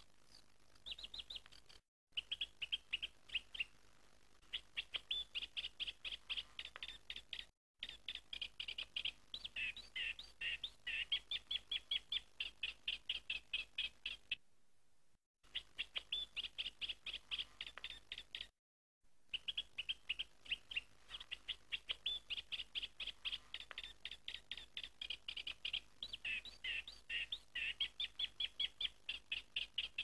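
Birds chirping in fast, even runs of short high chirps, broken several times by sudden total silences where the recording is cut.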